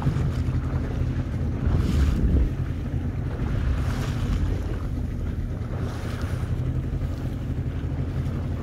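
A boat engine running steadily with a low, even hum, with wind gusting on the microphone over choppy water.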